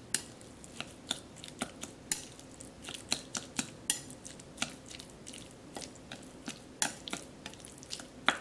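Chopsticks mixing seasoned sliced beef in a ceramic bowl: irregular clicks and taps of the chopsticks against the bowl, roughly two or three a second.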